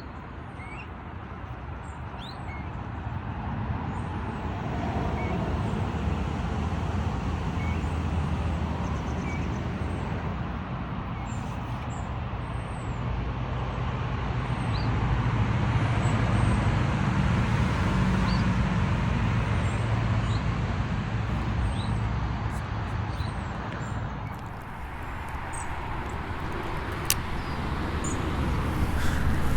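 Steady low rumble of passing motor traffic, swelling and fading, with small birds chirping over it.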